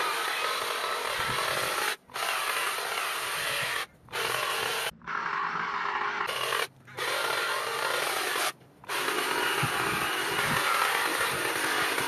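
Cordless hedge trimmer running and cutting through the leaves and twigs of a box hedge, the sound breaking off abruptly for a moment several times.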